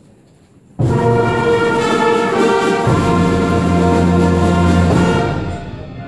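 A junior high concert band comes in all at once under a second in with a loud full chord of brass and woodwinds, then plays held chords with low brass underneath. The band grows quieter near the end.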